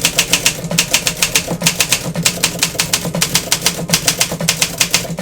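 Olympia SM7 manual typewriter being typed on fast: a steady, even run of loud, crisp keystrikes, about six a second.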